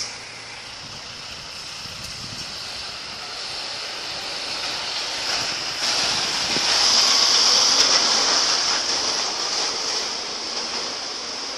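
A typhoon wind gust rushing. It swells to a peak about seven seconds in, then eases. A short click comes at the very start.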